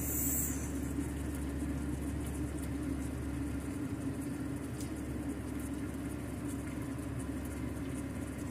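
A steady low mechanical hum, like a running motor or fan, with a brief hiss right at the start.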